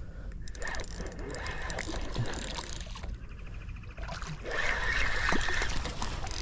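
A hooked slot-size red drum splashing at the surface close to the bank while it is reeled in, with a spinning reel ticking faintly as it is cranked.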